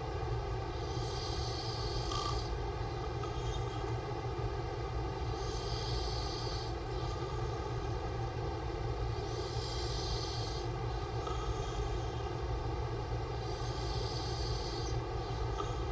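A man snoring with his mouth open: a rasping breath comes about every four seconds, four times, over a steady low hum.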